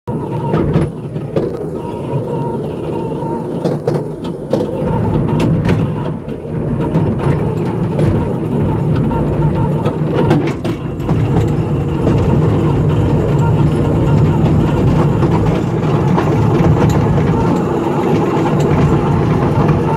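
Miniature fairground ride train running along its track: a steady low hum with scattered clicks and rattles from the wheels and carriage, getting a little louder about midway.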